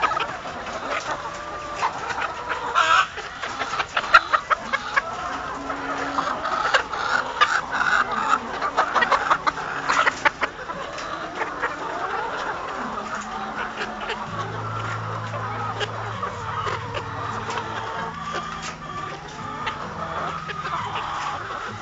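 A flock of chickens clucking continuously, with many sharp clicks mixed in. A low steady hum joins about two-thirds of the way through.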